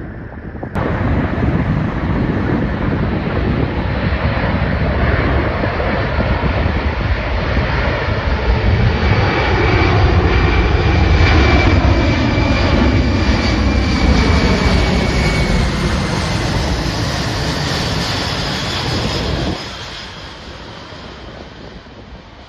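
Aircraft engines as an airplane passes close by, with a high whine and pitch lines that slowly fall as it goes past. The sound starts suddenly about a second in and cuts off suddenly near the end, leaving wind noise.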